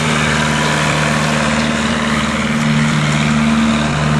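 Vehicle engine running steadily at constant speed, a continuous low hum with no revving.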